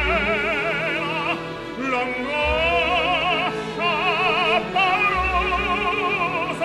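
Opera aria: a high voice singing in Italian, holding long notes with wide vibrato, over low sustained accompaniment.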